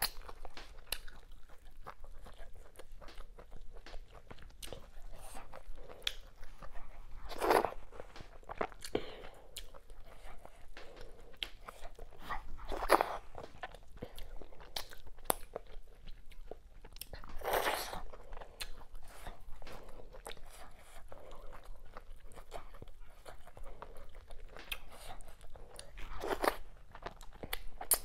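Close-miked wet chewing and lip smacking of a person eating fufu with slimy okra soup and mackerel by hand, with fingers going into the mouth. Small wet clicks run throughout, with four louder smacks spread through.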